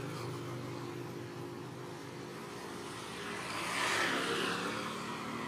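Motor vehicle engine running with a steady hum, and a louder swell of noise that rises and falls about four seconds in as a vehicle passes.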